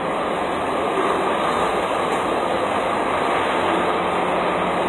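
Steady mechanical drone with a faint low hum underneath, unchanging throughout.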